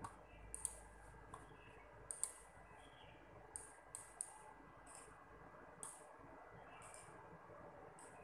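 Light, sharp clicks at irregular intervals, about a dozen over several seconds, over a faint steady hum of room tone.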